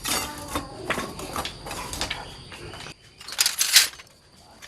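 Hand tools working in a bronze-casting workshop: a run of short scraping strokes and light knocks, with two louder rasping strokes about three and a half seconds in.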